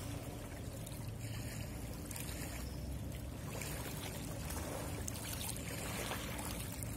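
Danube river water lapping and splashing against a rocky bank, with a steady low rumble underneath.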